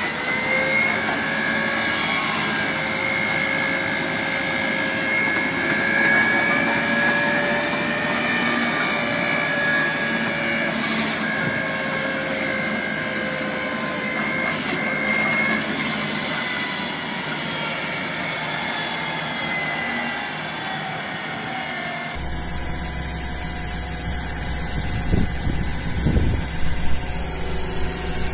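Excavator-mounted hydraulic flail mower spinning and cutting grass, a steady whine over the Doosan DX225LC excavator's diesel engine. About three-quarters of the way through, the sound cuts to another machine running with a lower rumble and a few louder surges.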